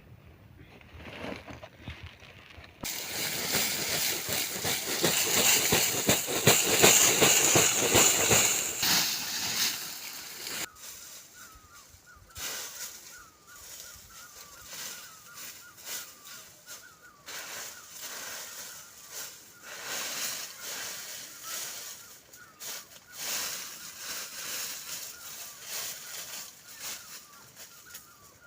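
A loud splashing, sloshing noise for several seconds. It then stops and gives way to a bird calling over and over in short chirps, about twice a second.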